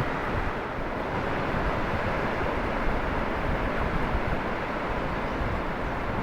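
Steady rush of ocean surf with wind buffeting the microphone in a low rumble.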